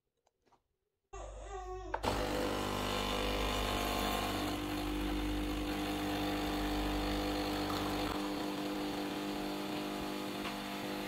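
Philips Senseo pod coffee machine brewing. Its pump starts about a second in with a steady buzzing hum, and a rush of coffee pouring from the two spouts into a cup joins it. The deepest part of the hum drops away about eight seconds in while the pour continues.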